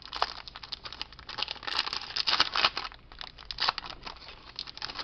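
Foil Yu-Gi-Oh booster pack wrapper crinkling and tearing as it is ripped open by hand: a dense run of crackles, loudest around the middle.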